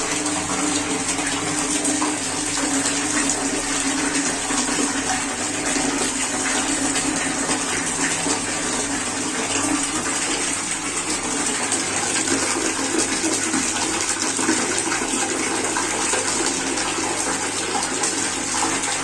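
Water running in a steady, unbroken stream, splashing evenly without pause.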